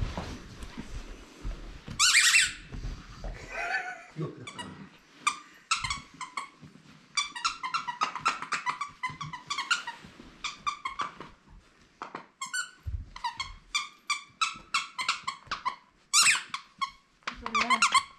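Squeaky dog toy squeaking over and over in quick runs of short, high-pitched squeaks, with short pauses between runs, as a beagle puppy plays with it.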